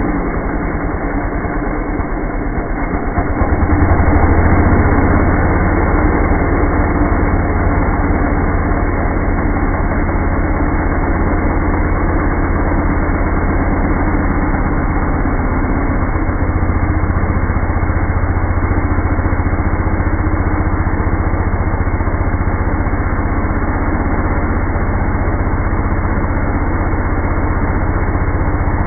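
Chainsaw engine running steadily, picking up and getting louder about four seconds in.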